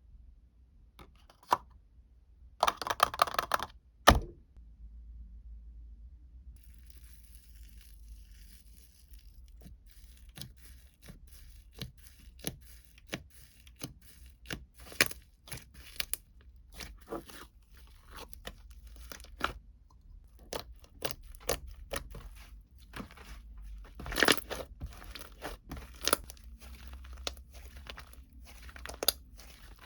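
Packaging being torn open and handled close up: a rough tearing burst near the start, a sharp knock just after, then a long run of crinkles, taps and clicks.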